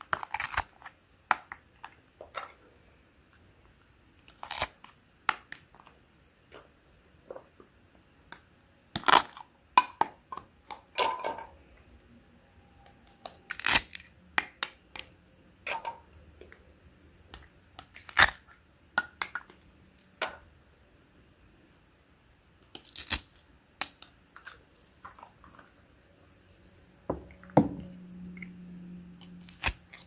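Plastic toy knife slicing apart velcro-joined plastic play fruit and vegetables: irregular clicks and taps of plastic, with short rips as the hook-and-loop halves pull apart.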